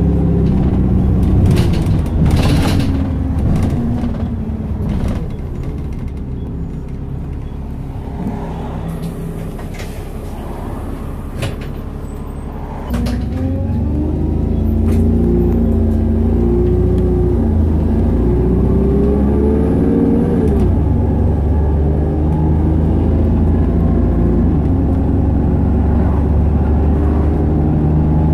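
Optare Solo SR single-deck bus's diesel engine heard from inside the passenger cabin. The engine note falls away at first and stays quieter for several seconds, with a few sharp rattles. About halfway through it pulls away hard, its note rising and dropping back a few times before settling into a steady run.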